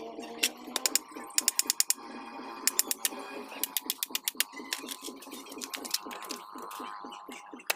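Hand ratcheting screwdriver clicking in quick runs of several clicks, again and again, as screws are driven into the wooden frame.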